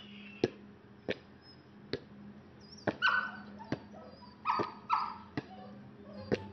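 A dog giving short, high-pitched barks, once about three seconds in and twice more a second and a half later, between a string of sharp taps.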